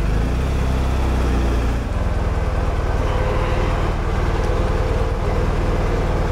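BMW R 1250 GS flat-twin engine, fitted with a Jekill & Hyde Nomad valved exhaust, running at low revs inside an enclosed shuttle-train carriage as the bike comes to a stop. Its low, pulsing note drops and settles to a steady idle about two seconds in.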